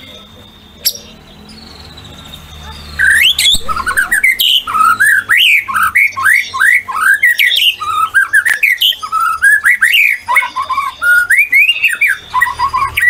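White-rumped shama singing a fast, loud run of varied whistled notes that rise and fall in pitch. The song starts about three seconds in.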